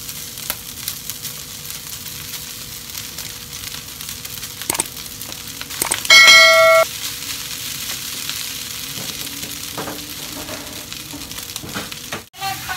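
Diced meat and sticky rice sizzling in a wok, with the spatula scraping and clicking against the pan and the metal strainer. About six seconds in, a loud ringing ding sounds for under a second and stops abruptly.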